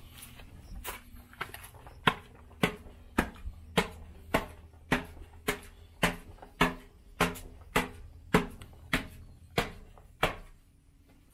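Footsteps climbing concrete spiral stairs in an enclosed stairwell: a steady run of sharp steps, a little under two a second, starting about two seconds in and stopping near the end as the top is reached.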